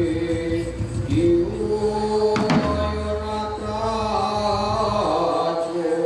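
Live ensemble music: chanting voices hold long notes that slide in pitch, a low drone comes in about two and a half seconds in, and a single sharp percussive hit sounds just before it.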